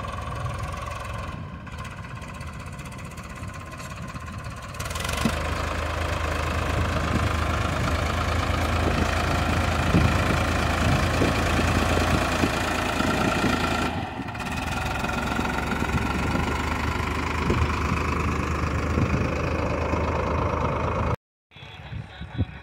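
Tractor engine running steadily, getting louder about five seconds in, then cutting off abruptly near the end.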